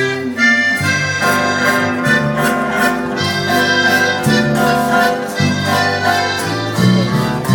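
Live waltz led by an accordion over guitar and bass notes, with hand percussion tapping out the beat.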